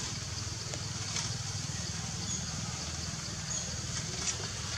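Outdoor ambience: a steady low rumble under an even high hiss, with a few faint short chirps and ticks.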